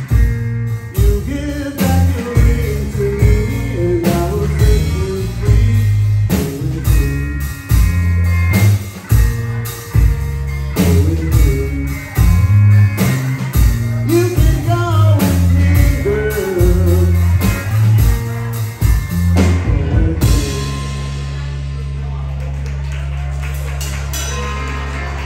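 Live rock band of electric guitar, violin-style electric bass and drum kit, with a lead voice singing. About 20 seconds in the drums stop and a last held chord is left ringing, slowly fading.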